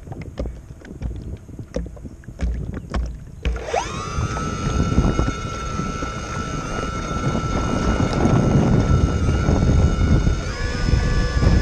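Wind on the microphone and small waves slapping against a remote-controlled bait boat's hull. About three and a half seconds in, the boat's electric propeller motors start with a quick rising whine and run steadily, the whine shifting pitch near the end.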